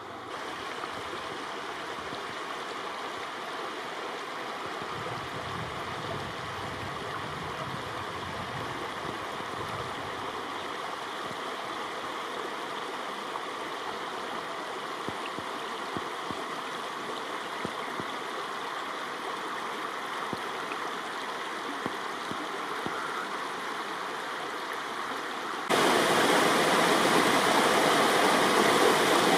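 Spring-fed stream flowing, a steady rush of water. About 26 seconds in it suddenly becomes much louder and brighter, as faster water tumbling over rocks takes over.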